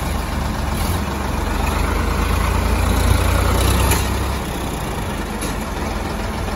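Ford 3610 tractor's diesel engine running under load. It grows louder and deeper from about two seconds in, then eases back near four seconds, as it pulls on a tow chain to free a stuck machine.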